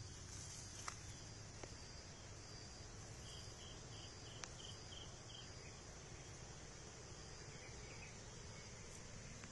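Faint rural background of insects chirring steadily, with a short run of rhythmic chirps about four a second in the middle and a few faint clicks.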